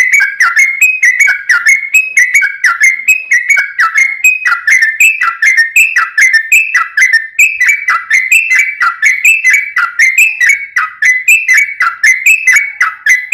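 Yellow-vented bulbul (trucuk) singing a fast, dense run of whistled notes without a break, about four to five notes a second, each note sliding up or down in pitch.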